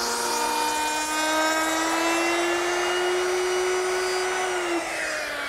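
Hand-held electric router running at speed with a steady whine while its bit cuts into a pine panel; about five seconds in it is switched off and the pitch falls as the motor spins down.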